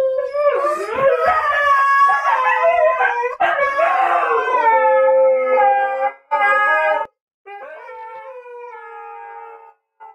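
Several Siberian huskies howling together in a group 'song', long wavering howls overlapping at different pitches. About seven seconds in the howling drops quieter, with brief breaks.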